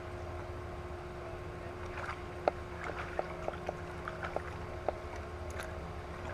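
Kayak on the water in wind: a low steady rumble with a faint steady hum under it, and a run of light, irregular clicks and knocks from about two to five seconds in, one sharper than the rest.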